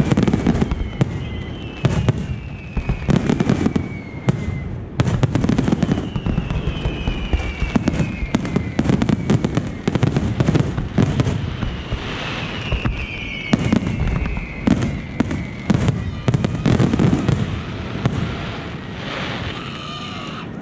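Aerial fireworks at the climax of a display: a rapid, nearly unbroken barrage of bangs and crackling bursts. Several long falling whistles run over them.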